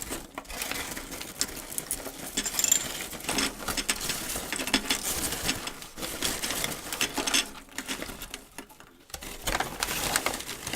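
Popcorn popping: a dense, irregular crackle of many quick pops, briefly thinning out a little past nine seconds in.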